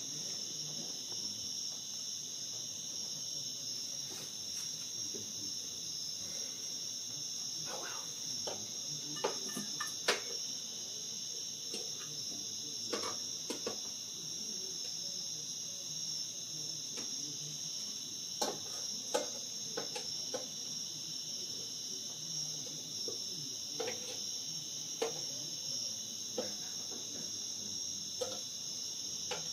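Night insect chorus: a steady, unbroken high-pitched shrilling, with a scattered handful of short soft clicks and taps over it.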